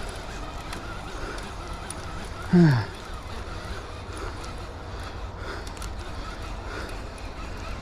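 Steady rush of a high-running river. About two and a half seconds in comes one loud, short, low call that falls in pitch.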